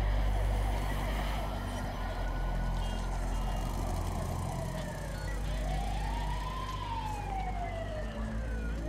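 Emergency vehicle sirens wailing in slow rises and falls, each wail several seconds long, two of them overlapping, over a low steady rumble.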